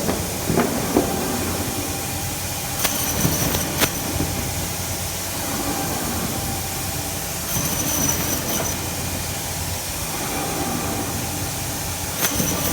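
HY 420A automatic meat band saw running steadily with a low hum. About every four to five seconds there is a sharper, high-pitched burst with a couple of clicks as the blade cuts through another slice of frozen meat and bone.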